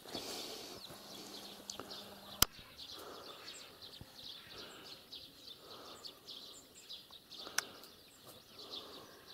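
Small birds chirping faintly and continuously. Two sharp clicks come about five seconds apart.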